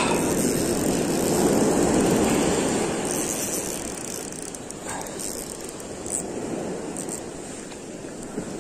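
Ocean surf: a wave breaking and washing up the sand, swelling about two seconds in and then slowly fading.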